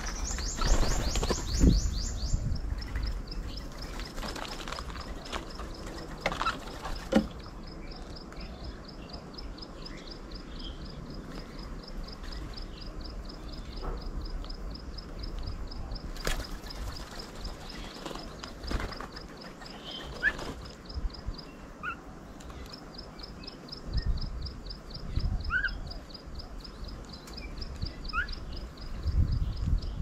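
Birds calling around a garden bird table: short rising chirps in the second half, over a fast, steady series of high ticks, several a second, that pauses briefly about two thirds of the way in. A few knocks and a low rumble sit underneath.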